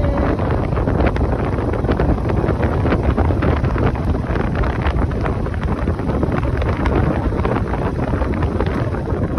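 Wind buffeting the microphone of a moving motorcycle, a loud, steady rush with rough gusty crackle, over the motorcycle's running engine and road noise.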